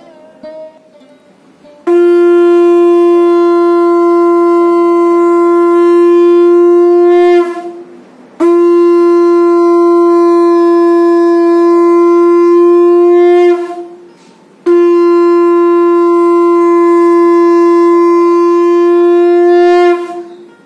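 A conch shell (shankha) blown in three long, loud blasts. Each blast is held at one steady pitch for about five to six seconds, with a short break between them.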